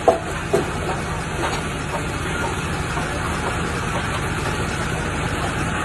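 Industrial wood chipper machine running steadily with a constant mechanical rumble, with two sharp knocks about half a second apart just after the start.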